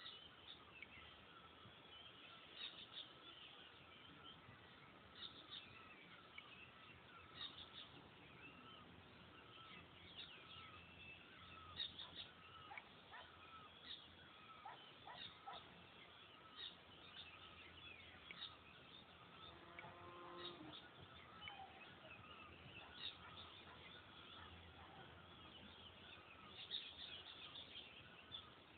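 Faint bird chirping: many short high calls and brief whistles, scattered irregularly throughout.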